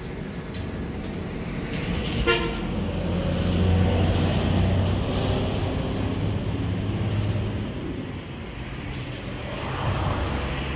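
A steady low mechanical hum, louder in the middle, with one sharp knock about two seconds in.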